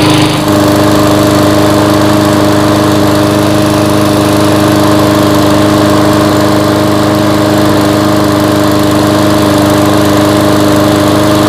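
Briggs & Stratton 300E Series single-cylinder four-stroke lawn mower engine running steadily, loud and close beside its exhaust muffler.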